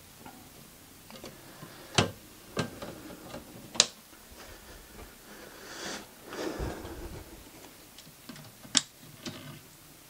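Handling noises: five sharp clicks and knocks spread out, with a rustle and a dull thump about two thirds of the way in.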